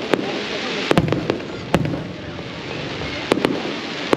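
Aerial firework shells bursting in a display: about seven sharp bangs, some in quick pairs, with a steady wash of noise between them.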